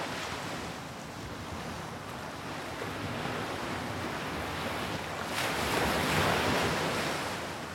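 Rushing wash of sea waves that swells about five seconds in, then tapers off.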